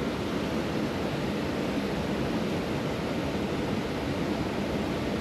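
Steady rushing of water pouring over a lake spillway.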